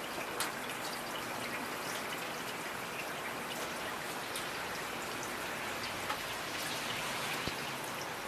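Steady rain falling, a continuous hiss dotted with individual drops striking a surface, a few louder drips standing out.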